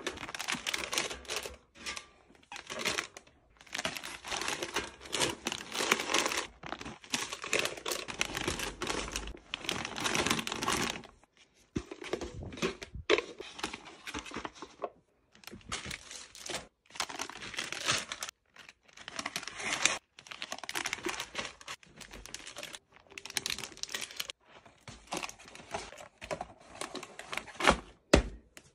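Plastic snack wrappers and bags crinkling as packaged snacks are handled and set into a rolling cart. The sound comes in stretches from under a second to several seconds long that cut off abruptly into silence.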